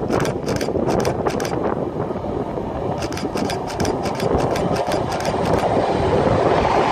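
Wind buffeting the microphone with a low rumble, broken by quick runs of sharp clicks. A train approaching grows louder toward the end.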